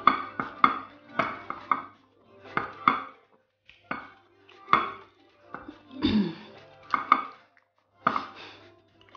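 Close-miked wet eating sounds: chewing and smacking mouthfuls of semolina swallow with slimy ogbono soup, eaten by hand from a ceramic bowl. They come in short bursts about once a second, and there is a short falling hum about six seconds in.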